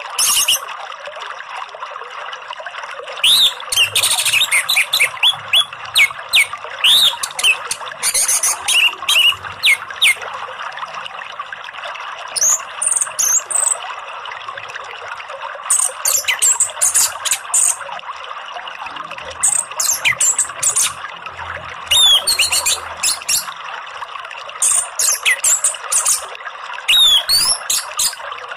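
Orange-headed thrush singing in repeated bursts of quick, high whistles and chatter, with pauses between phrases, over a steady rush of flowing water.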